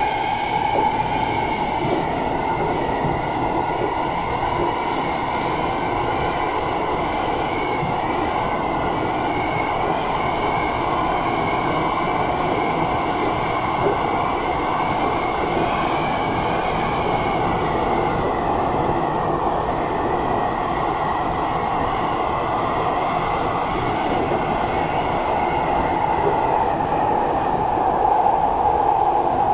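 SMRT C151 metro train heard from inside the car while running between stations: a steady rumble of wheels on the rails with a high whine that wavers slightly in pitch.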